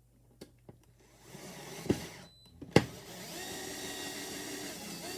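Power drill driving a screw into the wall. A few light clicks come first, then a short burst of the motor, then a steady run of about two seconds near the end as the screw goes in.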